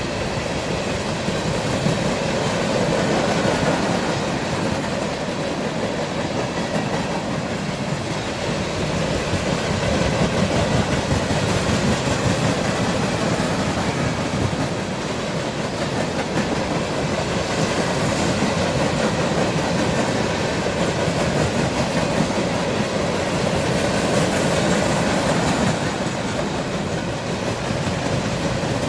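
Freight train cars rolling past at close range: a string of empty steel flatcars, with the steady noise of steel wheels on rail and a clickety-clack over the rail joints.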